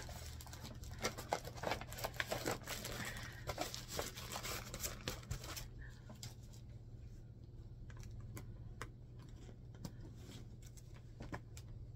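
Cut quilt pieces being handled and shuffled: soft rustling and many light clicks and crinkles, busy for the first half and sparser after.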